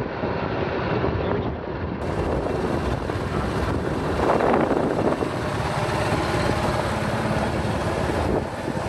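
Motorcycle riding along a road, its engine running steadily under a rumble of wind on the microphone.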